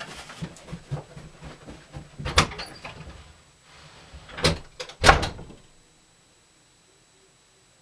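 Light footsteps in a room, then three sharp thuds, the last two close together and the last one the loudest.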